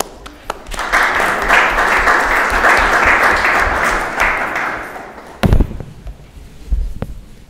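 Small audience applauding for about four seconds and dying away. Then two thumps from a microphone being handled as it is passed along the table.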